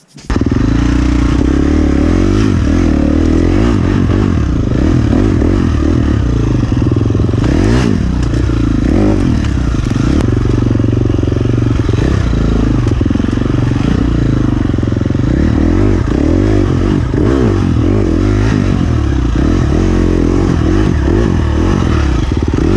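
Husqvarna enduro dirt bike engine, close up from the handlebars, revving as the bike climbs a rocky trail, its pitch rising and falling with the throttle.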